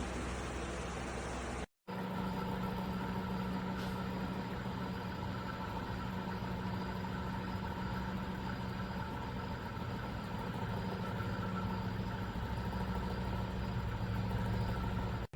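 Simple Deluxe 16-inch wall-mounted fan running: a steady whoosh of moving air with a constant motor hum. The sound cuts out for a moment about two seconds in, then carries on steadily.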